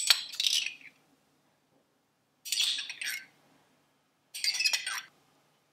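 A small glass spice jar shaken over raw meatloaf in two short rattling bursts, dry seasoning shaking through the shaker top.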